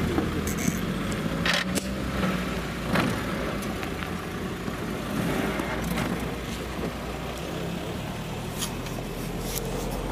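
A car engine running steadily with a low hum, with a few short clicks over it.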